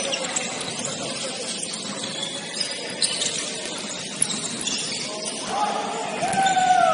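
Basketball game noise in a gym hall: short high sneaker squeaks on the court amid general game din, with a voice calling out near the end.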